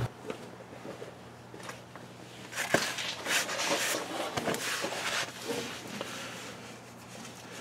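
Handling noise from a person moving under a tractor: rustling and scuffing, with a sharp click a little under three seconds in and a knock about a second and a half later.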